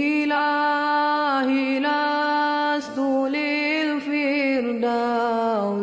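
A solo voice chanting an Islamic zikir in long held notes with wavering melismatic ornaments, breaking briefly between phrases. It starts abruptly out of silence.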